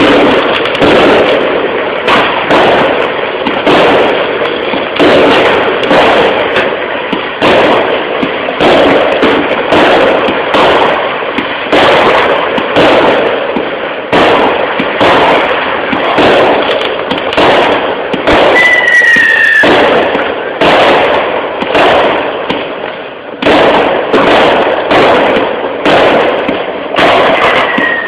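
Fireworks going off without a break: a dense, loud run of bangs and crackling. A short falling whistle cuts through about two-thirds of the way in, and another comes near the end.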